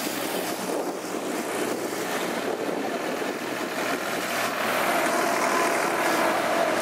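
Engines of vintage tractors driving past one after another, a grey Ferguson first and then an orange tractor, with a steady engine drone that grows a little louder in the second half.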